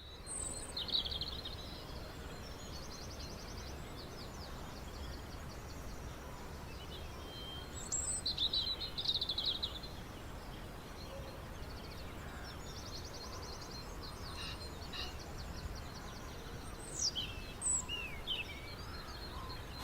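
Small birds singing: bouts of chirps and fast trills, loudest about a second in, around eight to nine seconds in, and near the end. Under them runs a steady low background noise.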